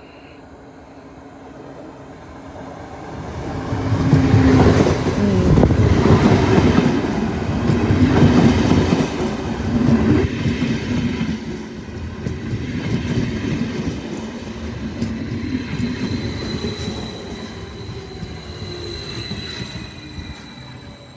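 Electric passenger train pulling out and passing close by: a rumble and clatter of wheels on rail that swells about three seconds in, peaks, then slowly fades as it moves away, with thin high-pitched squealing tones in the second half.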